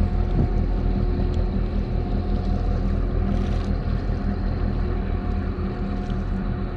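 Steady low drone of marine diesel engines from the container ship and the harbor tugboats at its stern, with a steady pitched hum over the rumble.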